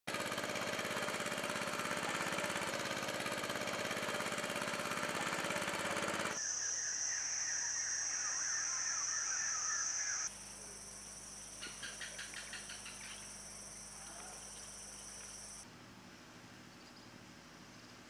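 Rainforest ambience cut together from several shots: first a dense, rapidly pulsing insect chorus, then shrill steady insect tones with chirping beneath. A short run of rapid repeated calls comes about twelve seconds in, and a low steady hum lies under the later shots.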